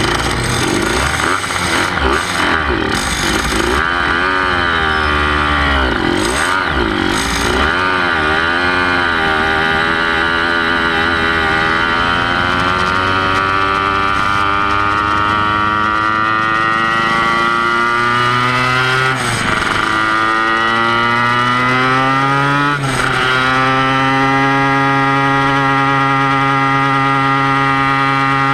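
Kreidler Van Veen 50cc racing motorcycle's small two-stroke engine, heard from onboard. It revs up and down as the bike pulls away, then climbs steadily in pitch with two sharp drops as it shifts up, and holds a steady high-pitched note near the end.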